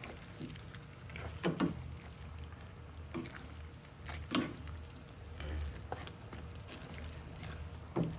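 Two wooden spatulas stirring and tossing alugbati greens, squash and string beans in a simmering pan, with several sharp knocks of wood against the pan over a low steady hum.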